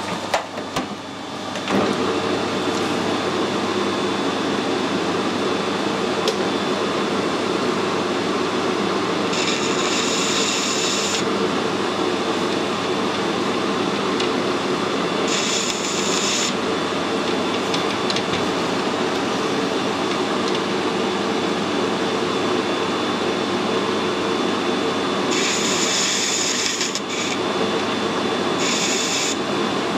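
Metal lathe starting up about two seconds in and then running steadily with the chuck spinning. Four times a cutting tool bites into the spinning workpiece with a short hissing scrape as its edges are radiused.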